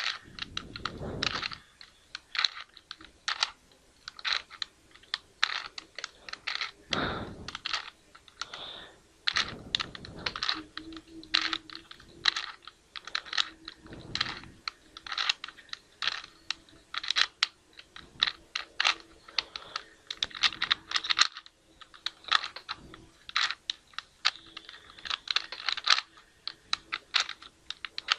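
3x3 Rubik's cube being turned by hand: quick, irregular plastic clicks and short scrapes as the layers rotate, several a second.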